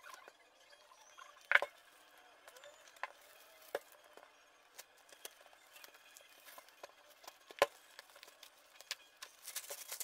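Gloved hands handling and unwrapping a parcel wrapped in black plastic and tape: faint scattered taps and crinkles, with a sharp tap about a second and a half in and another past the middle, then a run of crackling near the end as the wrap comes away.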